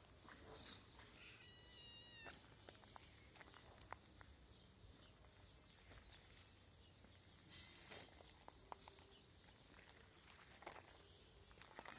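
A kitten meowing faintly: one clear high-pitched meow about two seconds in, after a weaker short one. Scattered soft clicks and scuffs follow.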